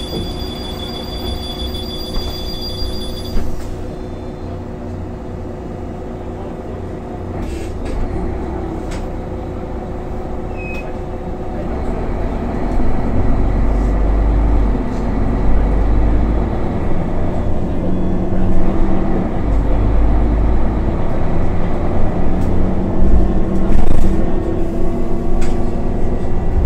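Solaris Urbino 15 city bus engine running steadily, with a steady high tone that stops at a knock about three seconds in. About twelve seconds in the engine grows louder and its note rises as the bus pulls away and speeds up.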